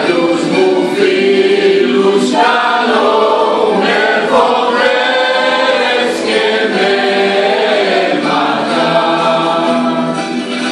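Mixed choir of men's and women's voices singing a Greek song, with long held notes that change pitch every second or two.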